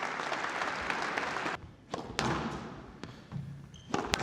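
Audience applauding for about a second and a half, cut off suddenly. Then squash play: a sharp knock of the ball a little after two seconds in, and another sharp crack of the ball near the end.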